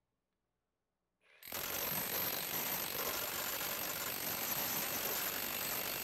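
Milwaukee 2717 SDS Max cordless rotary hammer starting abruptly about a second and a half in and hammering steadily at full trigger, its cut-off bit pounding a steel wedge and load-cell fixture at about 3,000 blows a minute.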